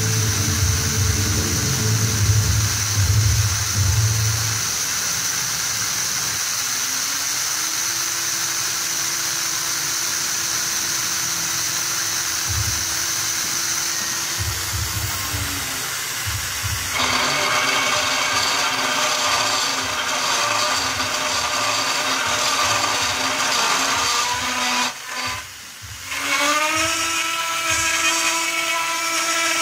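A CNC mill's high-speed spindle is running and a 6 mm two-flute carbide end mill is cutting an aluminium plate. The first half is a steady high whine. About halfway through, the sound becomes denser and rougher with several steady tones, dips briefly near the end, then rises in pitch and settles again.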